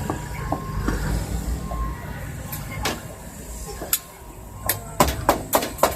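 A cleaver chopping stewed pork for rou jia mo. A few scattered knocks give way, about three-quarters of the way in, to a steady run of sharp chops at about three a second.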